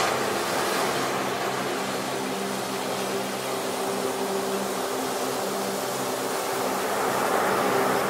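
Ocean surf: waves breaking and washing up a beach as a steady rushing noise that swells a little near the end. Faint held low tones run underneath.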